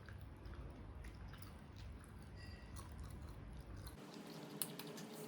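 Faint close-up chewing and soft wet mouth clicks of someone eating spicy adobo chicken livers and gizzards.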